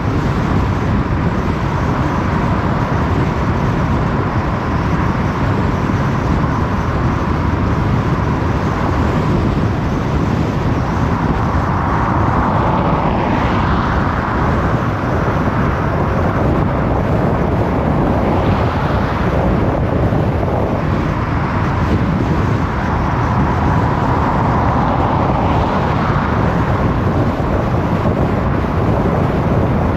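Car driving along a road: steady tyre, wind and engine noise, swelling briefly three times, about a third of the way in, past the middle and near the end.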